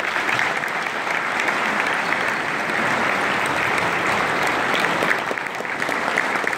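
A large audience applauding, dense and steady, breaking out all at once.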